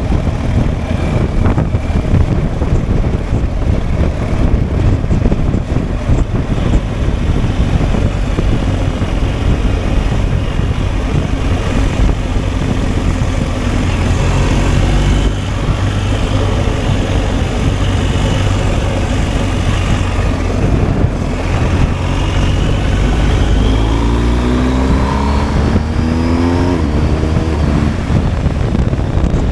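BMW R1250 GSA's boxer-twin engine running on the move, with a steady rumble of road and wind noise. Near the end the engine's pitch climbs in a run of short rises as it accelerates.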